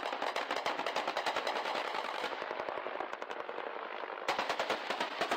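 Sustained automatic gunfire in a firefight: rapid shots running together without a pause. A fresh, sharper stream of fire starts about four seconds in.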